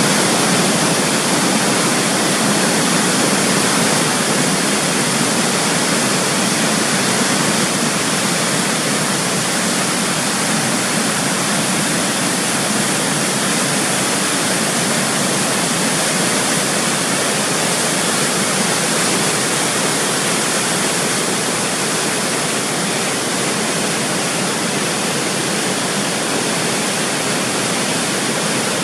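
Waterfall in spring high water cascading over boulders: a loud, steady rush of white water with no let-up.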